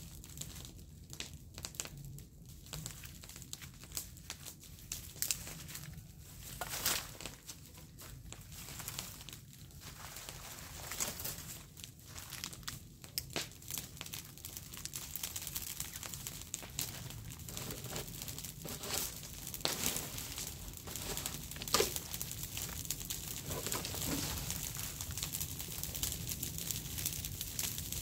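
Dry leaves crackling as they burn in a small leaf fire, mixed with the crinkle of dry leaves being handled. The crackle grows denser and louder over the second half, with a few sharp snaps.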